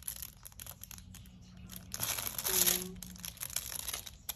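Clear plastic film on a diamond-painting canvas crinkling, with small clicks as a drill pen sets resin diamonds. A louder burst of crinkling comes about two seconds in.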